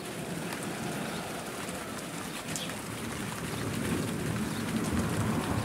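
Steady hiss of rain, with a low thunder rumble building over the last couple of seconds after a nearby lightning strike.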